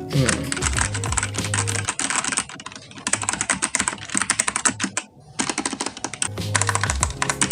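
Rapid typing and key presses on a Rexus Legionare MX9 TKL mechanical keyboard with red switches, a fast run of key clacks that stops briefly twice.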